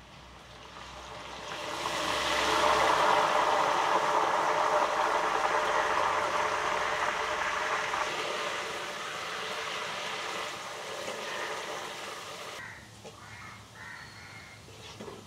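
Jackfruit bulbs deep-frying in hot oil in an iron pan, sizzling hard after a spoonful of turmeric water goes in: the sizzle swells about two seconds in, then slowly dies down, and is quieter near the end.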